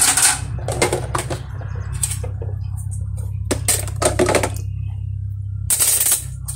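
Irregular light clicks and knocks from things being handled at a stainless steel kitchen sink, over a steady low hum, with a short hiss near the end.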